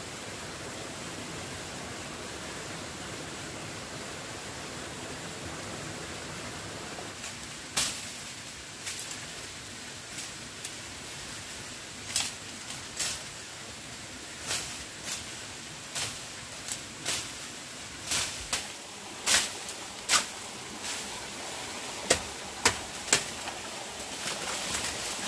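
A steady hiss. From about eight seconds in it is joined by a long, irregular series of sharp knocks or snaps, roughly twenty in all, with the loudest near the end.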